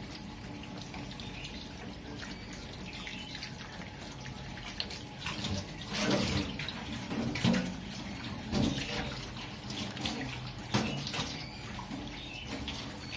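Water splashing in a stainless-steel sink as a wet cat is washed by hand, over a steady wash of water, with several louder splashes in the second half.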